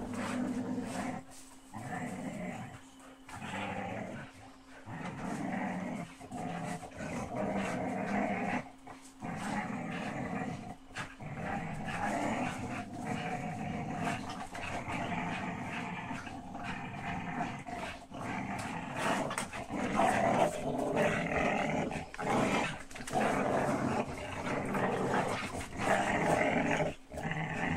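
Dogs growling steadily in play while tugging on a rope, with short breaks, growing louder in the second half.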